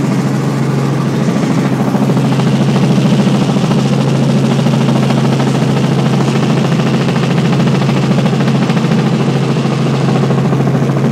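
Helicopter engine and rotors heard from inside the cabin in flight: a loud, steady drone with a constant low hum and a fast, even pulsing.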